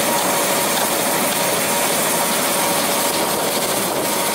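Steady engine noise: an even, constant rush with two faint steady tones in it.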